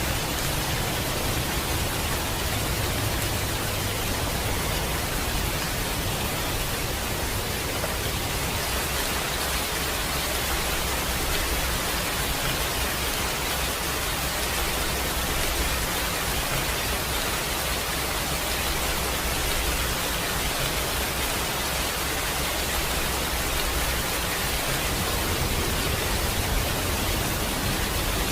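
Steady rain, an even unbroken hiss, with a low rumble underneath that swells and eases a couple of times.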